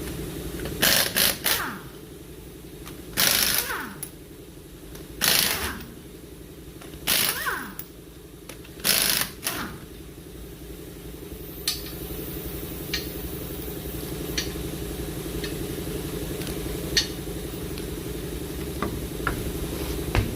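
Impact wrench running in five short bursts about two seconds apart, spinning off the five 19 mm lug nuts of a front wheel. After that come a few light clicks over a steady low hum.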